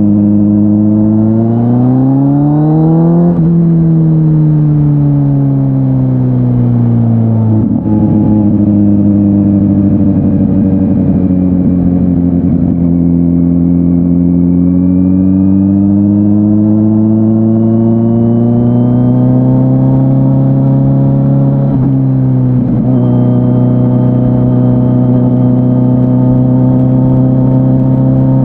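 Kawasaki Z900's inline-four engine running through an SC-Project S1 exhaust while riding. The revs climb briefly, then fall away, with a gear change a little over a quarter of the way in. They rise slowly again and drop at another shift about three quarters of the way through before holding steady.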